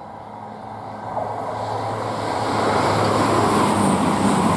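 Two CrossCountry Class 220 Voyager diesel multiple units passing at speed. The low drone of their underfloor diesel engines and the rush of wheels and air grow steadily louder as the train draws level.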